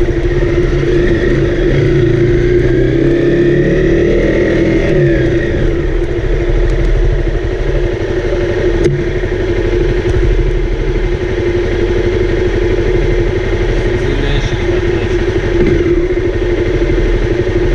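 Honda CRF250L's single-cylinder four-stroke engine running steadily under way. Its pitch rises and then falls about one to five seconds in.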